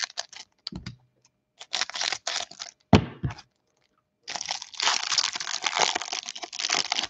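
Cellophane wrapper on a stack of trading cards being cut with scissors and pulled open, crinkling and crackling. There is one sharp click just before three seconds in, then dense, continuous crinkling through the second half as the wrapper is torn apart.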